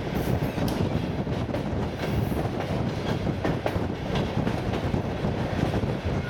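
ER9T electric multiple unit running at speed, heard from inside the carriage: a steady rumble and hiss of the running gear, with irregular clicks as the wheels pass over rail joints.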